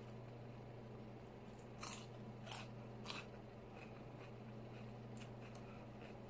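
Close-up chewing and mouth sounds of a person eating chili cheese fries, with a few sharp wet smacks or crunches about two to three seconds in and softer ones later, over a steady low hum.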